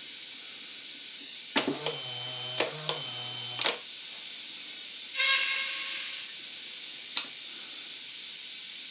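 Fleischmann N-scale model railway turntable's drive motor running for about two seconds as the bridge turns, a low hum with sharp clicks as it starts and stops. About five seconds in there is a short fading hiss of steam from the locomotive, then a single click near the end.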